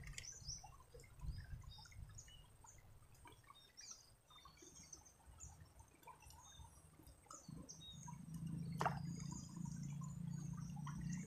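Faint trickling and dripping of a shallow river running over stones, with many small scattered high ticks. A low steady rumble comes in about seven and a half seconds in, with a sharp click near nine seconds.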